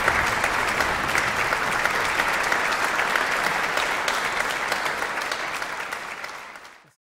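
Audience applause, a dense patter of many hands clapping, fading out over the last two seconds and cutting off just before the end.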